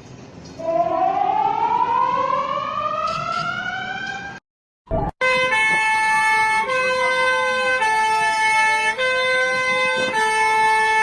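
Emergency alert alarm: a siren wail rises slowly in pitch for about four seconds and then cuts off. After a brief silence, a harsh alarm of several steady tones plays; the tones switch every second or so over a siren tone that sweeps slowly down and back up.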